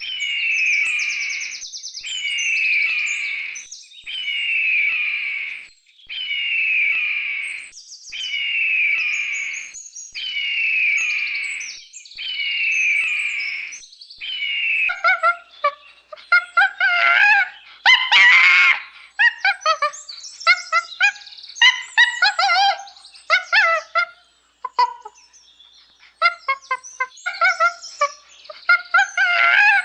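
High-pitched animal calls: seven near-identical chirping calls repeat about every two seconds, then a quicker run of short calls that rise and fall in pitch.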